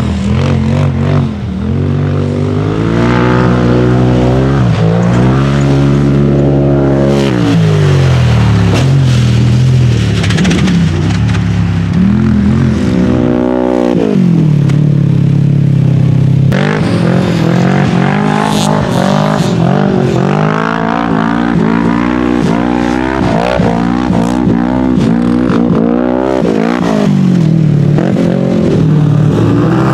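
Off-road buggy and UTV engines revving hard on a dirt track, the pitch climbing and falling again and again as the throttle is opened and lifted.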